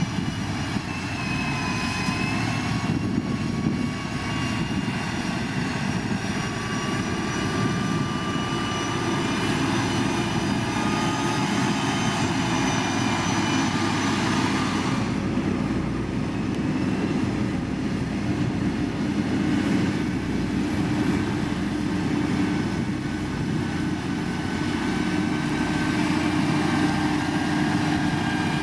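Heavy diesel road-construction machine's engine running steadily, with faint high whining tones over dense low engine noise.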